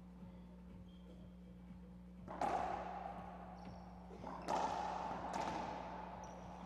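Racquetball rally: the ball is served and struck hard about four times, starting a little over two seconds in, each crack of racquet and ball off the walls ringing on in the enclosed court's echo. Brief high squeaks of shoes on the hardwood floor come between the hits.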